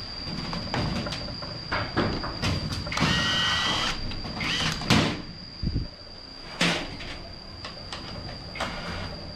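Cordless drill backing bolts out of a bolted planter-casting mould. The motor whirs for about a second near the middle, then spins up and down briefly, among knocks and clatter of bolts and mould parts on the metal worktable.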